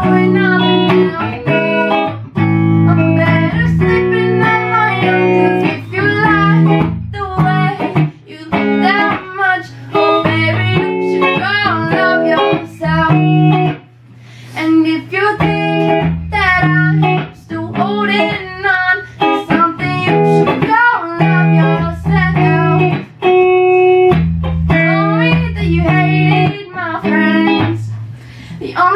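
A guitar played with a voice singing a melody over it: steady held chords underneath and a sung line that bends in pitch and pauses between phrases.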